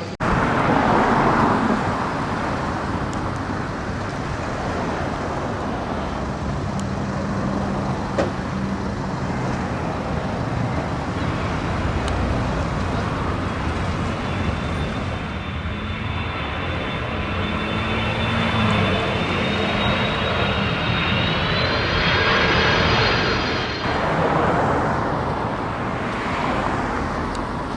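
Steady roar of a jet aircraft overhead mixed with street traffic. From about halfway through, a high turbine whine sounds; it rises slightly and drops away shortly before the end.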